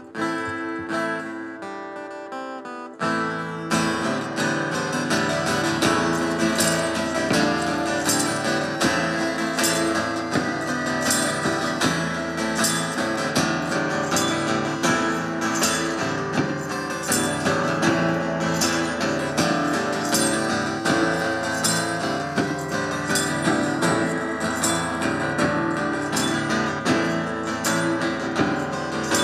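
Acoustic guitar music with no singing. A few plucked notes open it, then about three seconds in it turns into fuller, rhythmic strummed playing with a regular beat.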